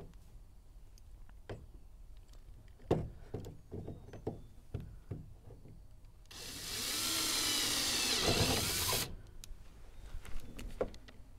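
Handheld power drill boring a 1-inch hole, running for about three seconds in the middle with its pitch wavering. Knocks and clatters of the work come before and after it.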